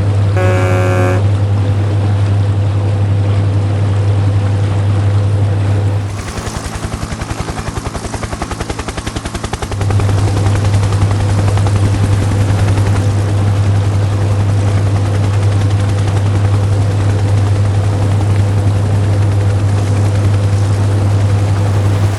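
Heavy construction machine's engine rumbling steadily. About six seconds in it gives way for roughly four seconds to a quieter, fast rattling, like a drill working, before the rumble returns.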